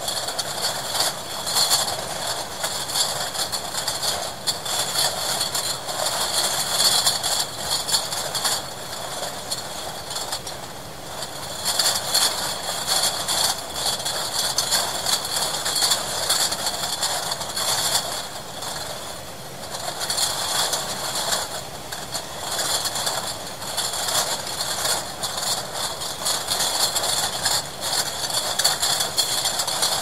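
Bottle-cleaning machinery in a milk bottling plant running with a continuous dense clatter of many small irregular clicks over a steady mechanical noise. It eases off briefly about ten seconds in and again a little before twenty seconds.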